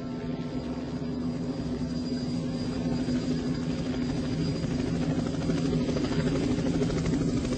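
Helicopter sound effect on a studio recording, growing steadily louder as it approaches.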